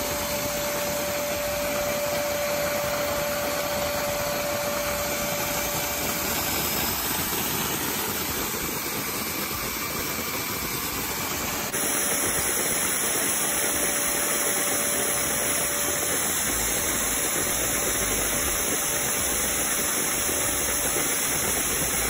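Vacuum cleaner running steadily, air rushing through a hose into a LEGO supercharger, with a steady whine over the hiss. The sound changes abruptly about halfway through, where the whine becomes fainter.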